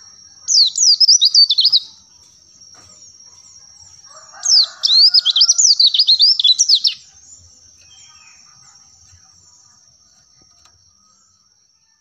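White-eye (pleci) singing: two bursts of rapid, high twittering song, the first about a second and a half long and the second about two and a half seconds, over a thin steady high tone with small faint chirps in the background.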